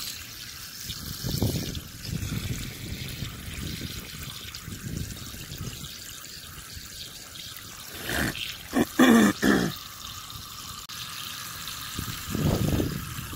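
Water running from a garden hose, a steady trickling stream splashing over soil, dry grass and rocks. A few louder sudden bursts come about eight to nine and a half seconds in.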